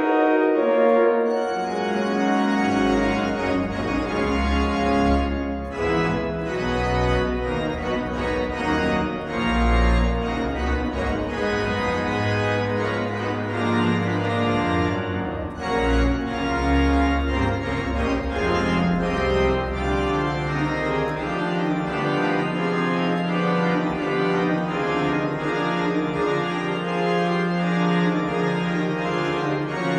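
Pipe organ sound from a Rodgers 960 digital organ console driving Hauptwerk virtual cathedral pipe organ samples, playing sustained full chords in a hymn arrangement. A deep pedal bass runs under the chords and drops out about two-thirds of the way through, leaving the manuals alone.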